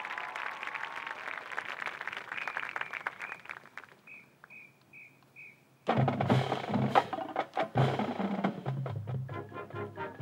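Audience applause fading out, then four evenly spaced high ticks counting off, and a high school marching band comes in loud and sudden with drums and cymbal-like hits, brass joining near the end.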